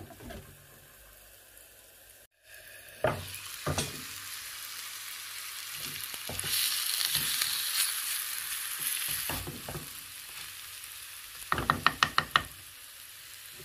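Onions and meat sizzling as they brown in a clay tagine, stirred with a wooden spoon. Near the end comes a quick run of knocks as the spoon hits the clay pot.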